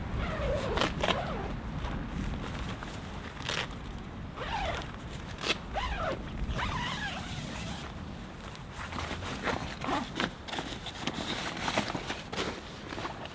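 Short rasping zips and swishes of nylon camping gear being handled, about a dozen quick strokes at irregular intervals, over a steady low rumble.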